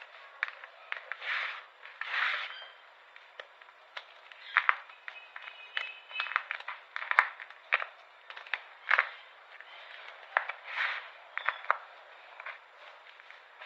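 Brittle tea-pink squares and rectangles being crushed for ASMR: irregular crisp crunches and crackles, with a few longer crumbling crunches.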